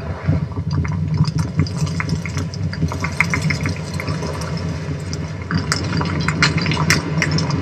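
A low, steady rumble with scattered crackles and ticks of grit and small stones falling. The crackling grows thicker and louder in the last couple of seconds, as of earth and rock shifting.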